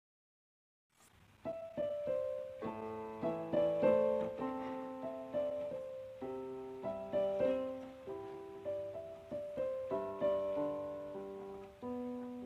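Piano music: after about a second of silence, a piece begins with gently struck notes and chords, each ringing out and fading.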